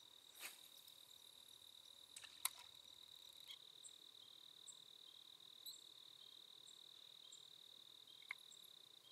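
Faint, steady, high trill of crickets, with a few faint clicks, the sharpest about two and a half seconds in.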